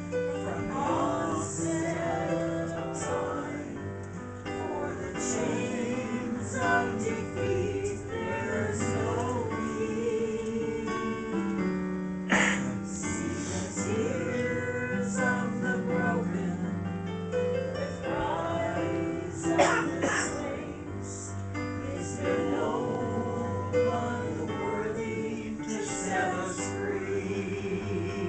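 A hymn played on a Yamaha Clavinova digital piano, with voices singing along.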